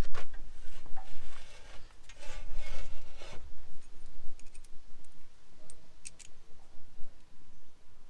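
Metal clinks, rattles and scraping as hands and a tool work on the bolt and pipe carrier holding the hydraulic hoses. The noise is busiest in the first three seconds, with a few sharp clicks around six seconds in.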